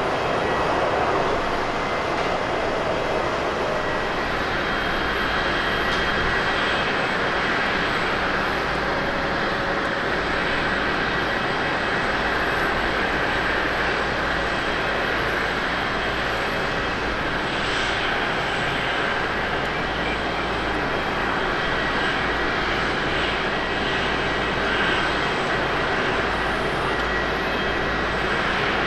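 Jet airliner engines running at an airport: a steady, even engine noise with a thin high whine running through it.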